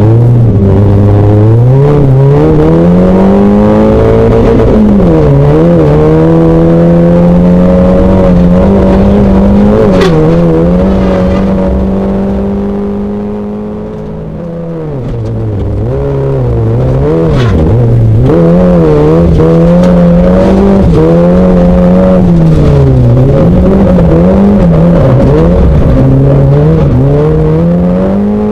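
A Renault Mégane V1600 rally car's 1.6-litre four-cylinder engine is heard from inside the cabin at full throttle. The revs climb and drop sharply at each gear change. About halfway through the revs fall away and the sound eases briefly, then it pulls hard again with several quick rises and falls in revs.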